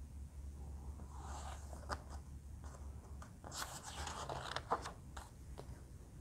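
A picture book's page being handled and turned: faint paper rustles, scrapes and small clicks, busiest about three and a half to five seconds in as the page turns, over a low steady hum.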